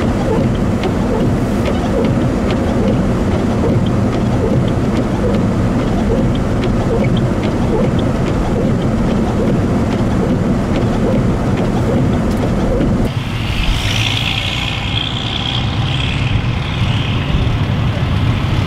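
Steady low rumble of idling vehicle engines, a fire engine among them. About thirteen seconds in, the low rumble drops away and a steady higher hiss takes over.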